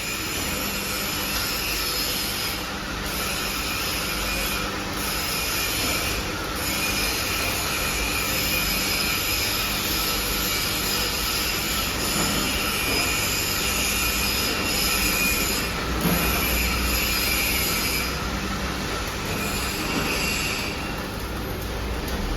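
Forging press machinery running continuously, giving a steady high metallic whine with several held tones over a low rumble, briefly dipping a few times.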